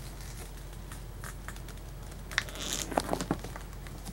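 Small clicks and rustles of hands handling electrical wire and tools, busiest with a cluster of clicks and a crinkle about two and a half to three and a half seconds in, over a steady low hum.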